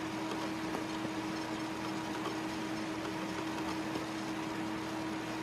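A steady hum with one constant tone over an even hiss, unchanging throughout, with no separate knocks or calls standing out.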